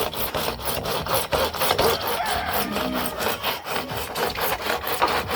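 Hand saw cutting through pipe lengthwise to make a gutter, in quick, even back-and-forth strokes.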